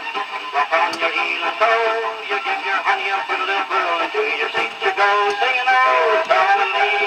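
Old 78 rpm shellac record playing music through an acoustic gramophone's soundbox, with thin, narrow-range sound and almost no bass.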